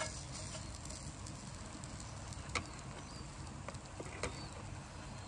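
Pancake batter frying on a hot wood-fired muurinpohja griddle pan, a steady faint sizzling hiss with a couple of light clicks in the middle.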